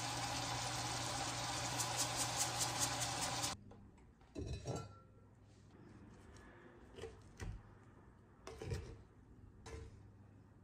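Steady hiss and crackle of rice cooking in a pot on the cooktop, cutting off suddenly about three and a half seconds in. After that, a plastic rice paddle gives a few soft scrapes and knocks as it mixes the cooked abalone rice in the pot.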